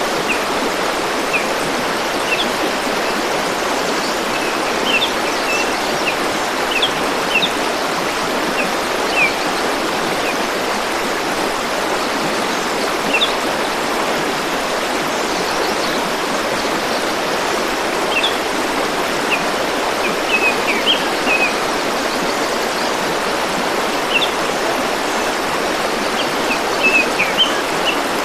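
River water flowing steadily, with short high bird chirps that come and go in small clusters.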